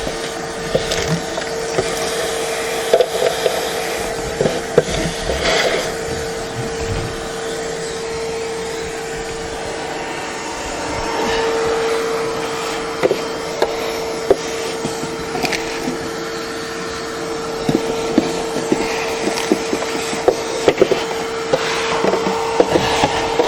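Vacuum cleaner running with a steady motor whine while vacuuming out a car's floor, with scattered clicks and knocks of debris and the nozzle.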